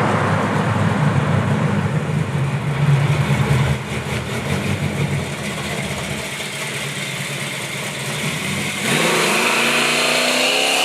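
440 Magnum big-block V8 of a 1962 Plymouth Savoy wagon running loud through three-chamber mufflers with a deep, steady exhaust note. It eases off about four seconds in. Near the end the revs climb.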